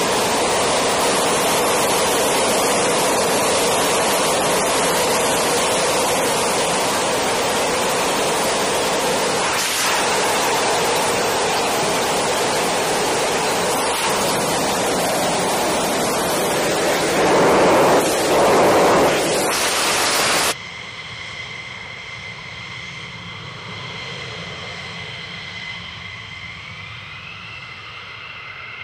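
An F-15 Eagle's Pratt & Whitney F100 turbofan running at full power with afterburner lit: a loud, dense, steady roar that swells briefly near the end. It cuts off abruptly to a much quieter, steady high whine of the jet's engines at low power.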